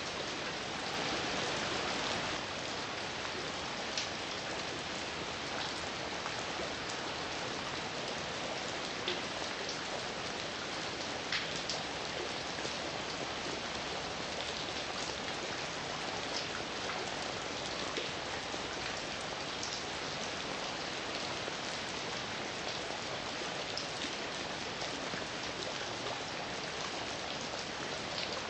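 Steady heavy rain falling, an even hiss with individual drops pattering on a surface now and then.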